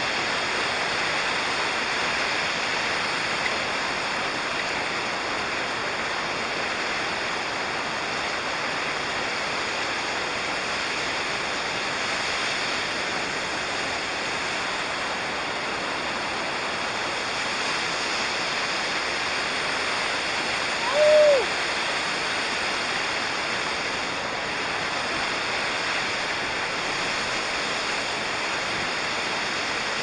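Steady, even rush of falling water from a waterfall. A little past two-thirds of the way through, a short whistle-like call, falling in pitch, rises briefly above it.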